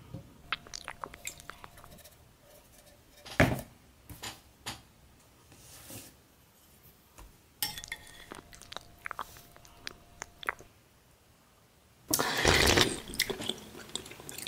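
Wet, squelchy clicks and spoon clinks on a ceramic plate as jelly-like food slides out of a can and is scooped with a metal spoon, with a louder wet burst about three seconds in and a longer, loud one near the end.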